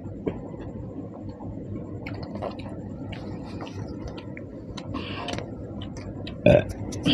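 Someone eating panta bhat, cooked rice soaked in water: wet squishing, chewing and small clicks, with one sharp louder knock about six and a half seconds in.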